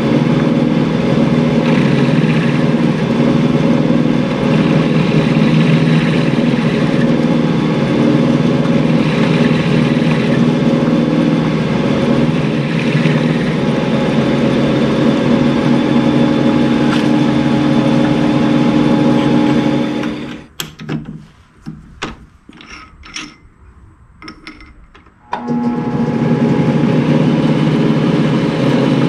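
Atlas-built Craftsman metal lathe running steadily under power, its spindle turning a small rod in the three-jaw chuck while a cut is taken. About two-thirds of the way through, the running noise falls away for about five seconds, leaving a few light clicks and taps, then comes back abruptly.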